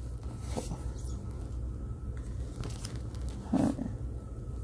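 Tarot cards handled and slid one past another, with soft rustles and faint clicks of card stock over a steady low hum, and one brief louder sound about three and a half seconds in.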